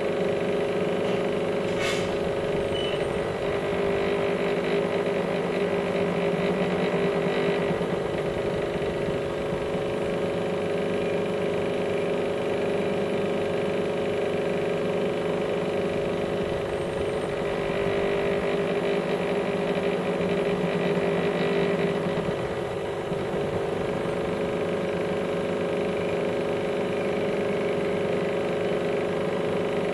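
Steady machine hum made of several steady tones over a low noise. It swells slightly twice, a few seconds in and again past the middle.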